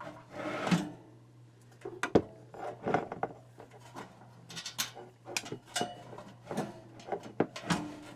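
Clicks, knocks and a scrape from handling parts while a space heater's fan motor is being fitted back into its housing; a dozen or more sharp knocks come at irregular intervals.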